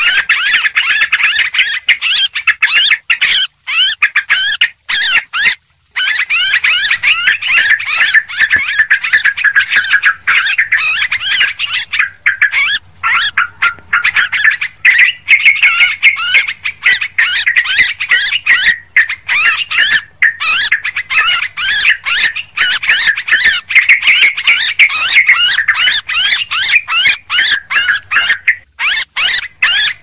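Yellow-vented bulbuls (trucuk) chattering noisily, a dense, overlapping stream of bubbly chirps and whistles with a few short breaks. It is a lure-call recording, played to draw in wild bulbuls.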